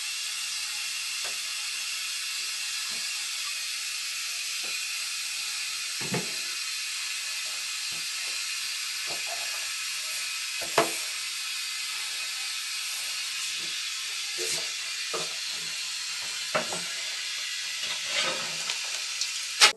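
Toilet flush water running into a bowl sealed with cling film: a steady hiss of water with a few small knocks and pops. The seal traps the flush water and air so their pressure pushes on the clog to clear it.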